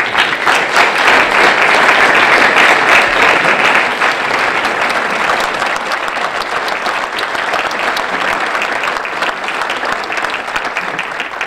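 Audience applauding, loudest over the first few seconds, then settling into steady clapping.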